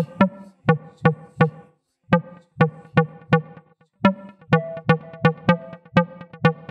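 Background music with a fast, steady beat over held tones. It breaks off briefly about two seconds in, then picks up again.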